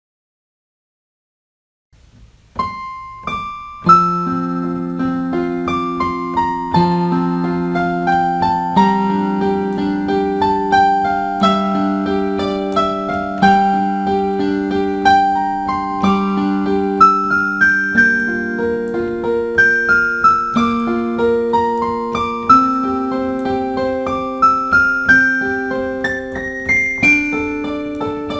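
Dead silence for about the first two seconds, then solo piano music begins: a line of struck notes over sustained lower notes.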